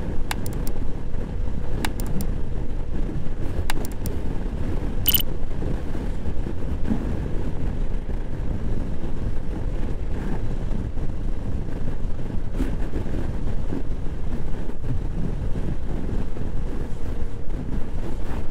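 Steady riding noise from a Honda PCX scooter cruising on a wet road: wind and road noise with the engine running beneath. A few sharp clicks come in the first six seconds.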